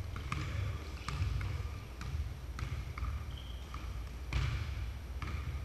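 Basketball bouncing on a hardwood gym floor: a series of sharp, irregular knocks, with a short squeak about three seconds in.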